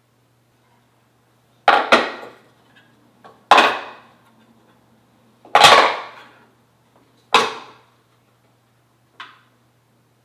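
A series of loud, sharp knocks, each ringing briefly: two close together about two seconds in, then three more spaced about two seconds apart, and a fainter tap near the end. A faint steady low hum runs underneath.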